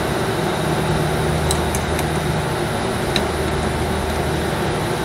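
A 35-ton packaged air-conditioning unit running with a steady hum and fan noise, with a few faint ticks as an adjustable wrench works on a refrigerant line fitting.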